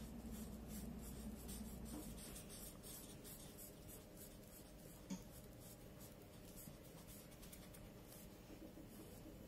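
Felt-tip markers rubbing on paper in quick back-and-forth colouring strokes, faint, with one small tap about five seconds in.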